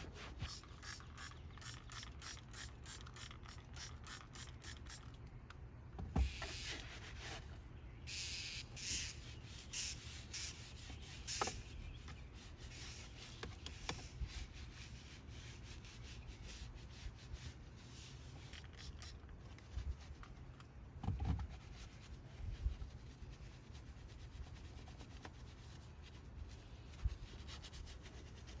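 Hand scrubbing and wiping on car interior trim: quick, rhythmic rubbing strokes of a microfiber towel, scrub pad and soft detailing brush over a vinyl armrest and a foamed steering wheel. A few soft knocks come in between.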